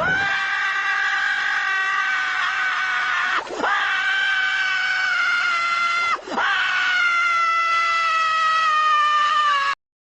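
Squidward's scream sound effect from SpongeBob SquarePants: a loud, long, held cartoon scream in three breaths, breaking about three and a half and six seconds in, its pitch sliding slowly down. It cuts off suddenly just before the end.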